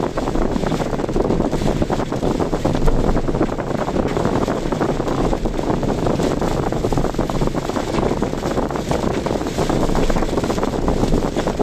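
Steady, rapidly fluttering rush of wind and road noise from a car driving through typhoon weather.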